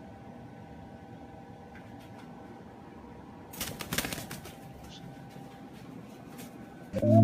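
A bird flapping its wings in a short flurry about halfway through, over faint room tone. Electronic music starts loudly near the end.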